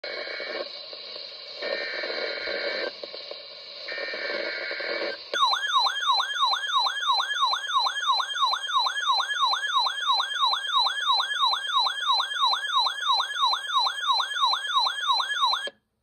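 RadioShack NOAA weather alert radio being triggered by a Severe Thunderstorm Warning: three short buzzy SAME data bursts, then the radio's alarm warbling up and down about three times a second, cutting off just before the end.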